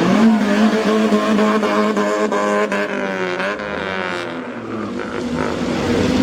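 A car engine running, its pitch swinging up and down about three to four seconds in.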